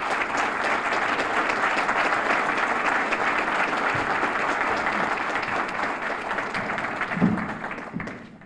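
Audience applauding steadily, dying away near the end, with a brief low thump shortly before it fades.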